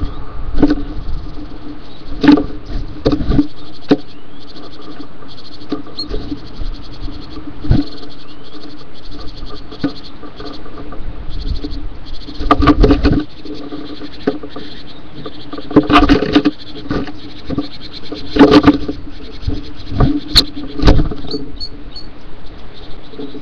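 Irregular knocks and scrapes on a wooden nestbox, loudest in a few clusters, over a steady low hum.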